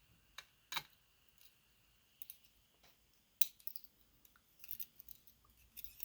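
Light metallic clicks and ticks of small lock pins and tools as the driver pins are taken out of a Medeco Biaxial lock during disassembly. Irregular single clicks, with the sharpest near the start and about three and a half seconds in, and a small cluster near the end.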